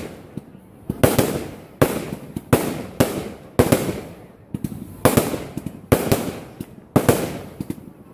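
Aerial fireworks bursting in quick succession, about ten sharp bangs roughly a second apart, each trailing off in a fading crackle and hiss.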